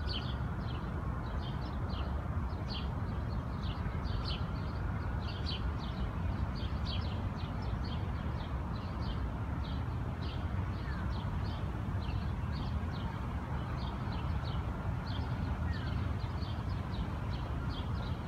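Canada goose goslings peeping: a continuous run of short, high peeps, several a second. Underneath is a steady low rumble of city traffic.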